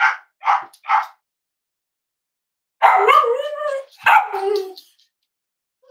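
Cavalier King Charles spaniel barking: three quick barks in the first second, then after a pause two longer, drawn-out barks.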